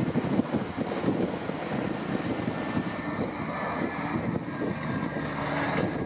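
Fendt 714 tractor's diesel engine running steadily, heard through heavy wind buffeting the microphone. The sound cuts off suddenly at the end.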